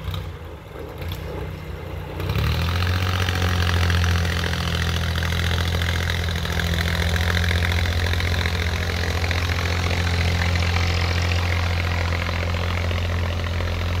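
Boat engine pushing a loaded iron barge, running steadily after picking up about two seconds in.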